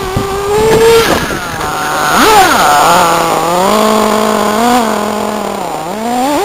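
Small nitro engine of an RC car revving, its pitch rising and falling several times as the throttle is worked, then dropping away near the end.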